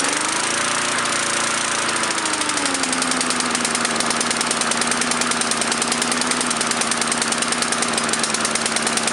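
Gasoline lawn mower engine running right after it starts, its speed easing down a little two to three seconds in and then holding steady. The tiny holes in its carburetor bowl bolt have just been cleaned out, the fix for its rough running and hard starting.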